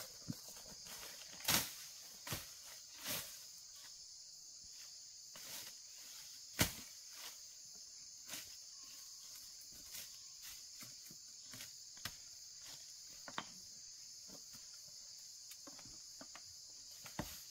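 Steady high-pitched insect chorus, with scattered sharp knocks and clicks at irregular intervals, the loudest about a second and a half in and again at about six and a half seconds.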